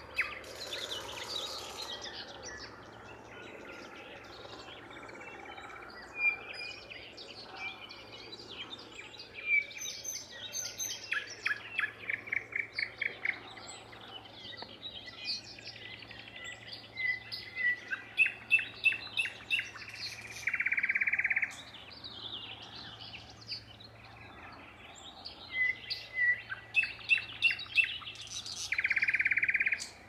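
Songbirds singing in a spring dawn chorus: many chirps, whistled notes and fast trills of rapidly repeated notes. Two loud buzzing notes, each about a second long, stand out, one about two-thirds of the way through and one near the end.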